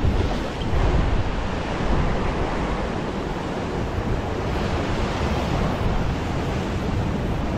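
Ocean surf surging and washing over a rock ledge, a steady rush of breaking water, with wind buffeting the microphone.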